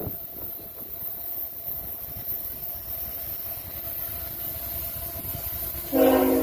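CSX GE ET44AH diesel locomotive approaching with a low steady rumble; near the end its air horn starts, a loud sustained chord.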